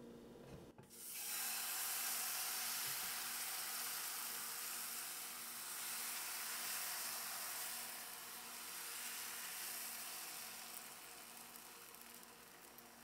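Crêpe batter sizzling in a hot nonstick frying pan. The sizzle starts suddenly about a second in as the batter hits the pan, then slowly dies down toward the end.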